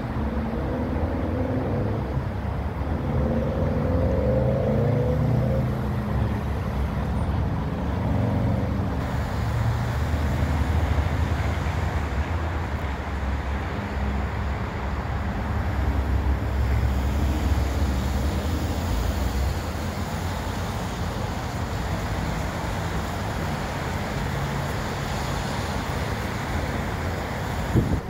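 Road traffic driving through a multi-lane intersection on wet pavement: car engines and tyres on the wet road over a steady low rumble. A sharp click comes right at the end.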